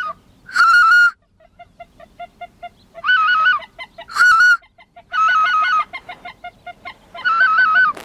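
Goose calling: a series of loud, warbling two-tone honks, one every second or two, with soft, quick clipped notes in between.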